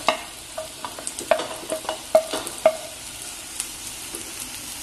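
Sliced button mushrooms tipped into a pot of butter-fried onions, sizzling steadily, with a string of knocks and scrapes as the spatula and plate hit the pot, each knock leaving a short ring, mostly in the first three seconds.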